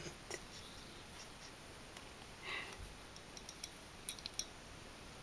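Faint, sparse clicks and a brief soft rustle as a metal grooming comb is worked through a long-haired kitten's fur, with a few clicks close together about four seconds in.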